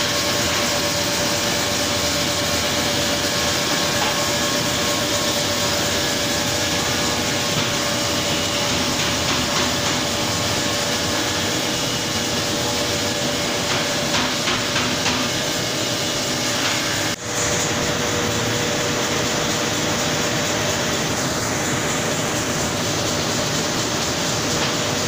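Fish-processing line machinery running, a steady mechanical noise with a constant hum. It breaks off for an instant about two-thirds of the way through, and the hum is a little lower afterwards.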